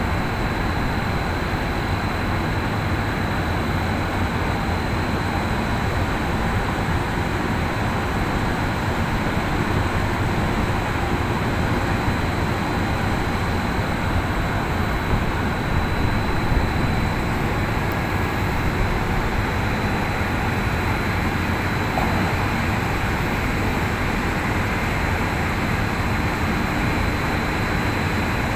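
Steady drone of bulk-cargo handling machinery: the sugar discharge hopper, its conveyor and the ship's grab crane running, with a thin high whine over it.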